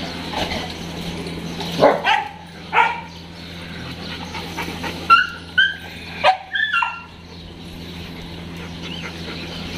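Dogs barking and yipping: a couple of barks about two and three seconds in, then a quick run of short, high yips between about five and seven seconds in.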